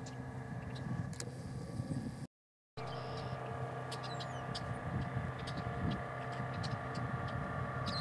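Steady low mechanical hum with a few faint, short high chirps and clicks over it. The sound cuts out completely for about half a second a little over two seconds in.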